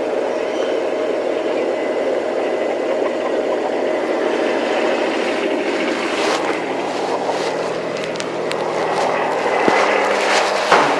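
Small tractor's engine running steadily. Scattered light clicks and knocks join in from about halfway through.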